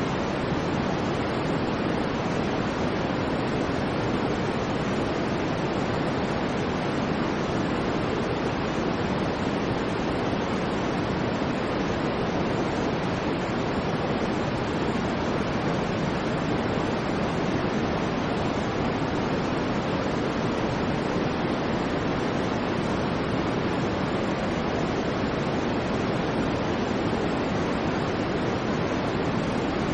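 Steady, unbroken white noise: an even hiss, deeper-toned rather than bright, with no changes in level.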